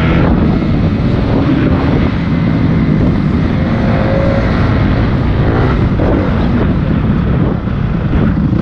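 Motocross dirt bike engine running on board as the bike slows from about 50 to under 20 km/h into a turn, with wind buffeting the camera microphone.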